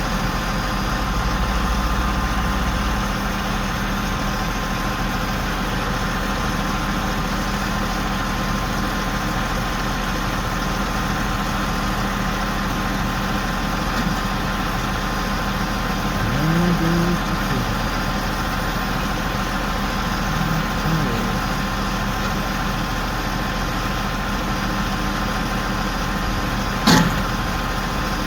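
A big crane's engine running steadily during the lift, with a sharp knock near the end.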